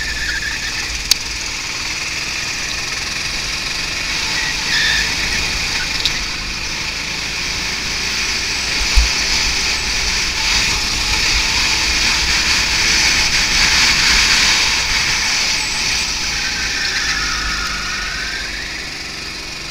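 Go-kart engine running at speed through corners, heard from a camera mounted on the kart, with wind rumbling on the microphone. A short squeal near the end.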